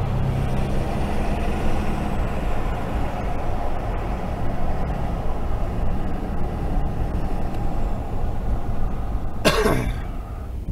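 Steady road and engine noise of a vehicle under way. Near the end comes a brief, loud burst whose pitch falls.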